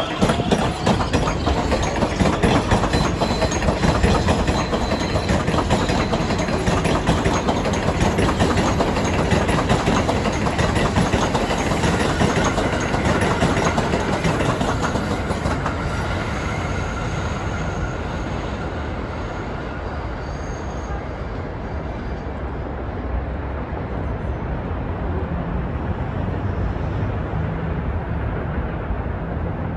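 R188 7 subway train running on the elevated steel structure, its wheels clattering and rattling over the rails as it passes and pulls away. The clatter fades over about twenty seconds, leaving a steady low rumble of street traffic.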